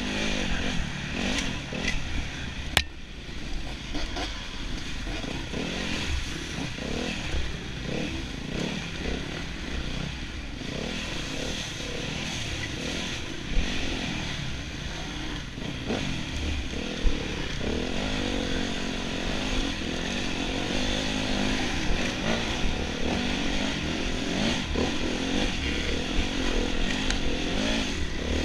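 Enduro motorcycle engine revving up and down continuously as the bike is ridden. A few sharp knocks sound over it, the loudest about three seconds in.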